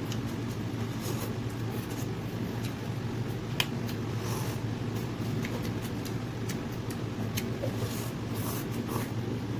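Someone eating noodles: scattered short clicks and smacks over a steady low hum, with the loudest click about three and a half seconds in.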